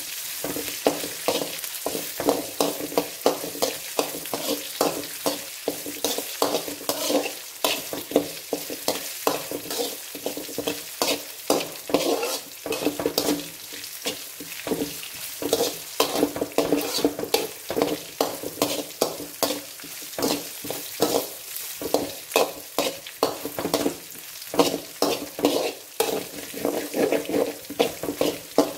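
A flat spatula scraping and stirring around a metal kadai in quick repeated strokes, a few a second, while ginger-garlic paste, green chillies and curry leaves sizzle in hot oil as they are sautéed.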